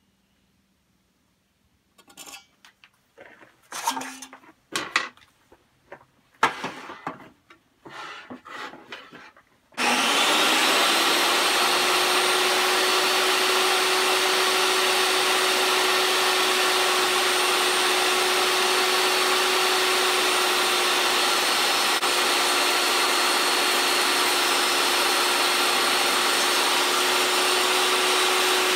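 Scattered clicks and knocks of handling, then a DeWalt table saw starts abruptly about ten seconds in and runs with a steady whine while a pine board is ripped along the fence.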